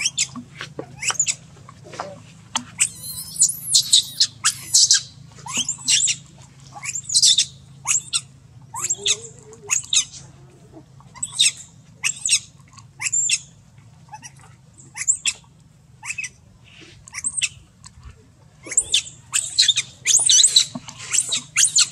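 Baby monkey squealing in short, high-pitched cries, repeated over and over with short pauses.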